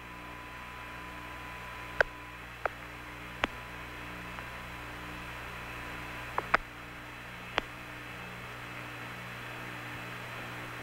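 Open air-to-ground radio channel with no one talking: steady hum and hiss, a faint low buzz pulsing on and off about twice a second, and about half a dozen sharp static clicks.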